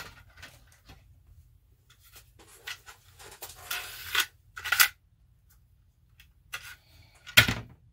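Small parts and wires being handled at a workbench: scattered rustling and scraping, with a sharp click near the end.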